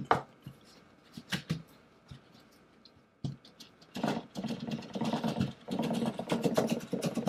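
Cardboard outer sleeve being slid off a headset box. A few light taps and handling clicks are followed, from about four seconds in, by a continuous scraping rustle of cardboard rubbing on cardboard.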